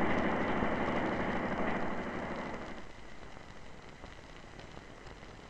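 Steady noisy hiss of an old film soundtrack, fading away over the first three seconds and leaving a faint hiss.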